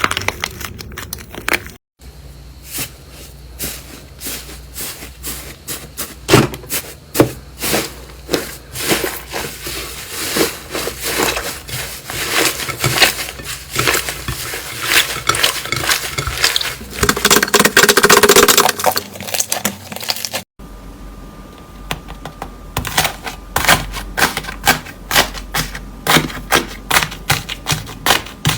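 Slime being pressed and squeezed close to the microphone, giving quick runs of sticky popping and crackling clicks. The sound breaks off abruptly twice, about two seconds in and about twenty seconds in, and starts again.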